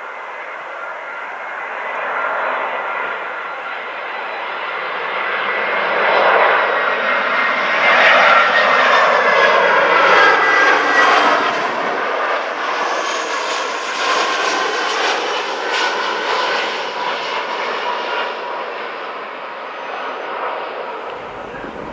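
Airbus A320 jet airliner passing low overhead on landing approach. The engine noise swells to its loudest about eight to eleven seconds in, with whining tones that fall in pitch as it passes, then fades away.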